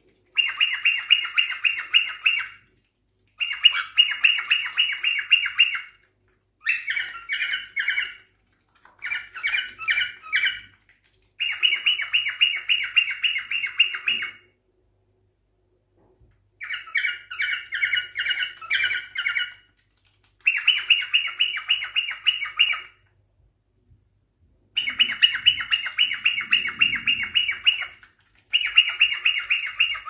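Cockatiels calling in repeated bouts of rapid, squawky chirps, each bout lasting two to three seconds with brief silences between.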